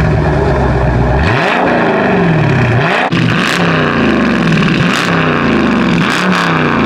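Car engine revving hard: a steady low rumble, then the revs climb and fall again and again, about once a second in the second half.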